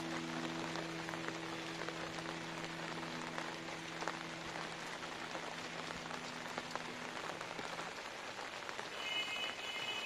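Steady monsoon rain falling: a dense, even hiss dotted with the ticks of single drops.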